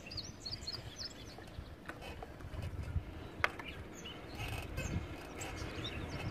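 Huffy beach cruiser bicycle rolling along asphalt: a steady low rumble of tyres and riding, with one sharp click about three and a half seconds in. Birds chirp briefly in the first second.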